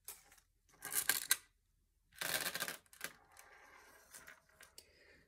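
Wooden beads clicking and rattling against each other and a small metal tray as they are picked out and laid on a table: two short rattling bursts about a second and two and a half seconds in, then a few light clicks.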